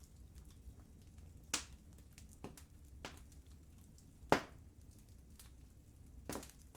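Burning wood in a fireplace crackling: scattered sharp pops and snaps over a low steady rumble of the fire, the loudest pops about a second and a half in and just past the middle.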